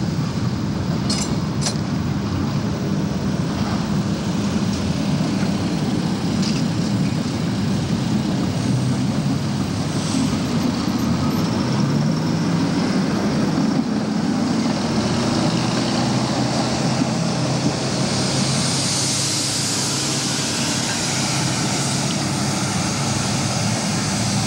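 Road traffic going by at an intersection: a steady vehicle rumble with a motor's hum that glides in pitch midway, and a hiss that grows louder in the second half.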